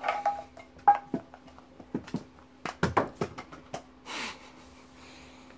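Snuff tins being handled: a run of light clicks and taps, with a short breathy hiss about four seconds in.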